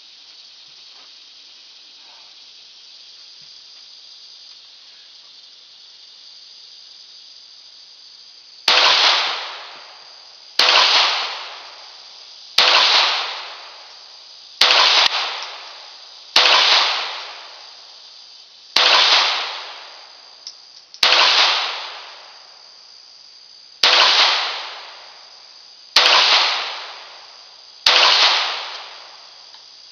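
Ruger Mark III 22/45 .22 LR pistol firing ten single shots about two seconds apart, starting about nine seconds in after a quiet stretch; each sharp report trails off in echo under the range's shelter roof. Every round feeds and fires with no stoppage.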